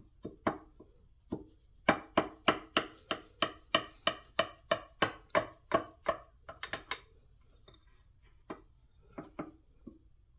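A run of sharp, evenly spaced knocks, about three a second for some five seconds, each with a short ringing tail, with a few scattered knocks before and after.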